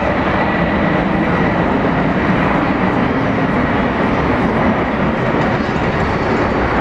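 Jet aircraft engines running, a loud steady roar with a faint high whine in the first seconds.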